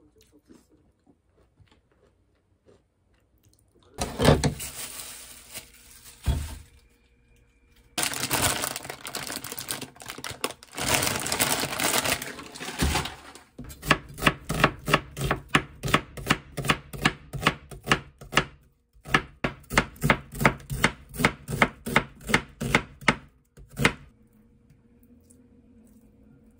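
Kitchen knife chopping an onion on a wooden cutting board, in even strokes about three or four a second, in two runs of several seconds each. Before them come two stretches of rougher, denser noise.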